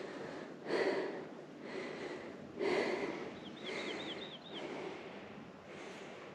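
A hiker's heavy, rhythmic breathing, about one loud breath a second, from the exertion of climbing a steep trail. Near the middle a bird gives a quick run of about six high chirps.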